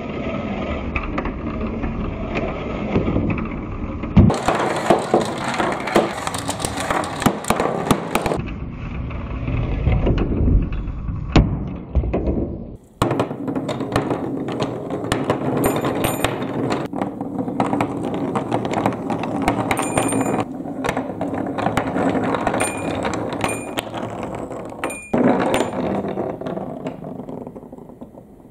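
Balls rolling down a wooden marble run: a steady rattling roll along the wooden track with many sharp clicks and clacks as the balls drop and knock against the wood. There is a brief break about 13 s in, and the sound fades away near the end.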